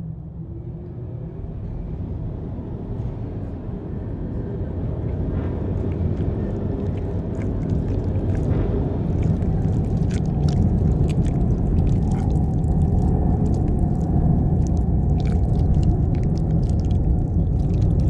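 Low rumbling drone with faint moaning tones, growing steadily louder over the first ten seconds and then holding, with scattered faint clicks and crackles in the second half.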